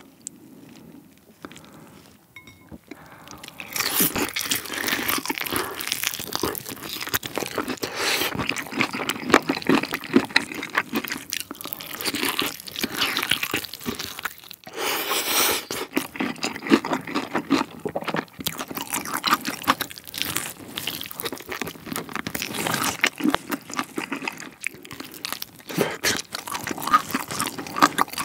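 Close-miked crunching bites and chewing of a fried yangnyeom chicken drumstick dipped in Buldak hot sauce, starting about four seconds in after a near-quiet moment and carrying on densely, with crackling bites throughout.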